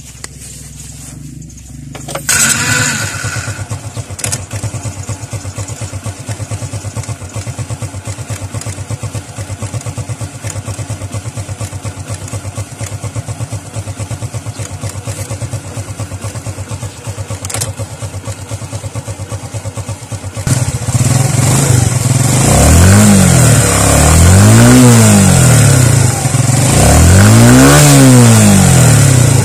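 Suzuki Smash 115's 112 cc single-cylinder four-stroke engine starts about two seconds in and idles steadily, being test-run after a valve-clearance tune-up. Near the end it is revved up and let fall back three times.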